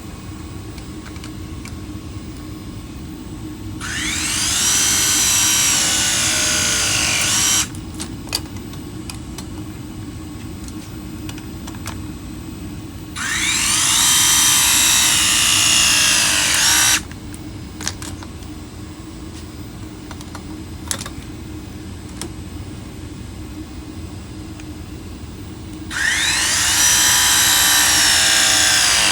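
Battery-powered pipe press tool running three press cycles, each about four seconds long, crimping press-fit fittings onto copper pipe. In each cycle the motor's pitch drops as the jaws take the load, then holds and cuts off sharply when the press completes.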